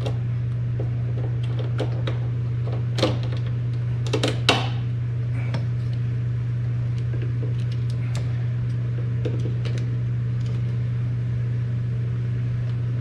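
A steady low hum throughout, with a few sharp metal clicks and clatters about three and four seconds in, consistent with the smoke machine's power clamps being attached to the battery terminals.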